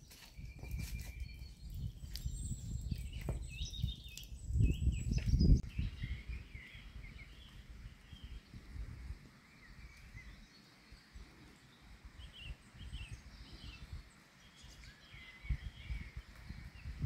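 Wind rumbling on the microphone, with a strong gust about five seconds in, while small birds chirp in short rising notes throughout.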